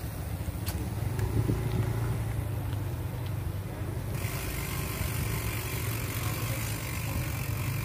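Low rumble of wind on the microphone and tyre noise on tarmac while riding a bicycle, with a brighter hiss coming in about four seconds in.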